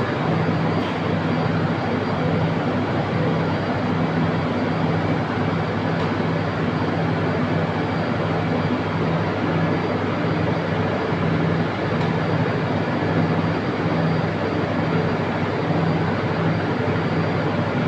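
Loud, steady industrial machinery running, with a low hum that swells and fades about once a second.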